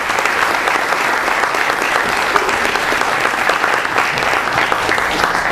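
Audience applauding: a dense, steady clapping that dies away right at the end.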